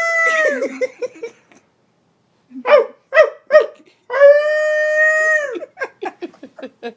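A man imitating a dog howling with his voice: two long held howls, each about a second and a half, with a few short yips between them and a quick run of yips after the second.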